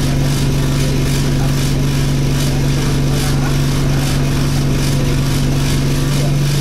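Steady, annoying vibration drone inside the cabin of an Alexander Dennis Enviro200 single-deck bus. It is a constant low hum with an overtone, held unchanged over the engine and road noise as the bus runs.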